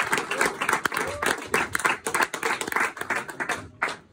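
Audience clapping at the end of a song, dense at first and thinning out near the end.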